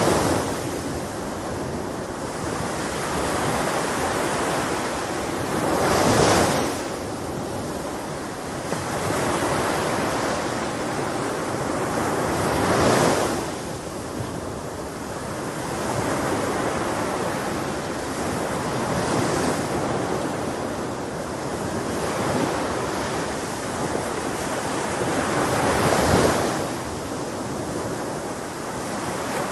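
Ocean waves breaking on a shore: a continuous rush of surf that swells into a louder break about every six to seven seconds.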